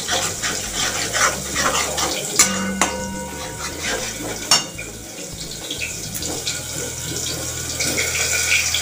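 Metal spatula stirring and scraping thick masala paste as it fries in a metal kadai, in repeated strokes, with two sharp clinks of the spatula against the pan, about two and a half and four and a half seconds in. The stirring grows quieter after about five seconds.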